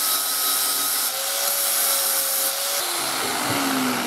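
Hand-held angle grinder with an abrasive disc running against a rusty steel chisel, grinding the rust off. About three seconds in it is switched off and its whine falls in pitch as it spins down.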